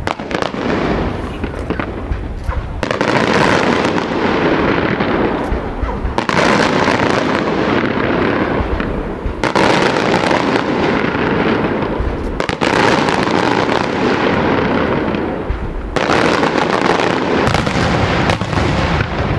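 Daytime aerial firework shells bursting about every three seconds, six in all, each opening with a sharp bang followed by a dense crackle that rolls on until the next.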